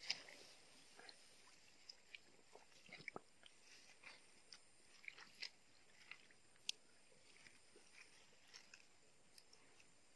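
Faint, scattered small clicks and soft pops, irregular and a few to the second at most, over a quiet hiss; one sharper click about six and a half seconds in.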